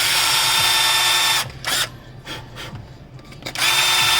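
Electric drill running in two bursts, drilling a hole in the project box for a push button. It runs steadily for about a second and a half, stops, then starts up again near the end.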